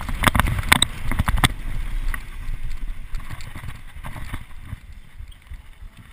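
Mountain bike ridden fast over a bumpy grass and dirt course: tyre rumble and wind buffeting the microphone, with sharp knocks and rattles from the bike over bumps in the first second and a half, then dying down toward the end.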